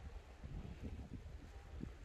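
Wind buffeting the microphone, a fluctuating low rumble, with a few faint short knocks over it.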